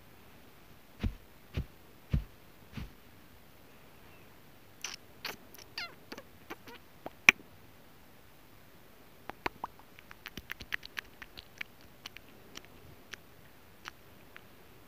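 Scattered faint clicks and taps, with four soft thumps in the first three seconds and a quick run of ticks, several a second, about ten seconds in.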